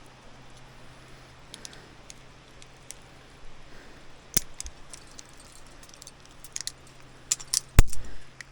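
Climbing gear clinking as a rappel is rigged: scattered metallic clicks of carabiners and the rappel device, with a cluster of clicks and one sharp knock near the end.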